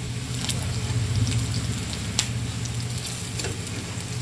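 Sliced onions frying in hot mustard oil in a metal kadai, sizzling steadily over a low hum, with a few sharp clicks as a metal spatula knocks against the pan while lifting the onions out.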